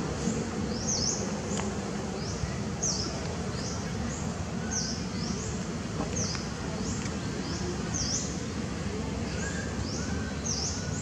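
Birds chirping: short high calls that dip and rise in pitch, repeating about once or twice a second, over a steady low background noise.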